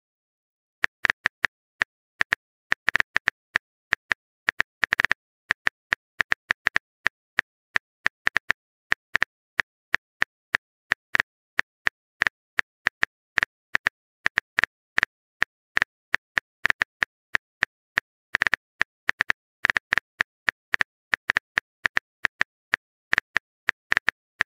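Phone keyboard typing clicks: a long run of short, sharp taps at an uneven typing rhythm, several a second with brief pauses, as a text message is typed out.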